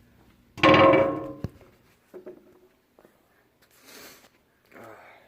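A loud clang about half a second in that rings for roughly a second as it dies away, followed by a sharp knock; a few faint short noises after.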